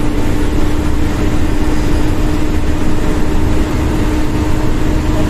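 Steady engine drone and road noise from a vehicle driving at speed, with a constant low hum over a dense rumble.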